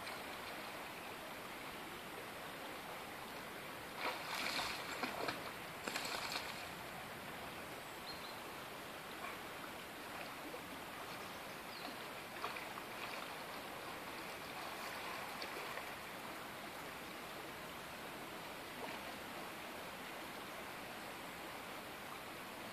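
Steady rush of a shallow river flowing over stones, with two short, louder bursts of noise about four and six seconds in.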